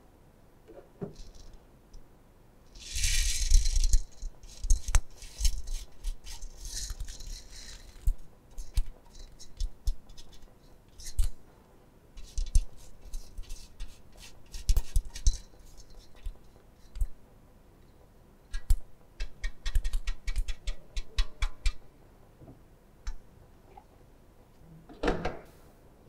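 Gravel-sized aggregate tipped from metal sieves into a metal pan on a scale, rattling and clattering in short bursts, with the steel sieves and pans clinking as they are handled. The retained fractions are being weighed for a sieve analysis. The longest rattle comes about three seconds in, and a dull thump follows near the end.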